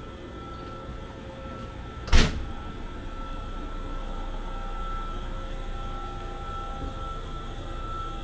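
Standing electric train's onboard equipment running, a steady low hum with a thin high whine over it. A single sharp clunk about two seconds in.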